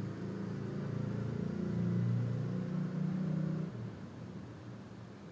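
A low, steady motor hum that stops about three and a half seconds in, leaving only faint hiss.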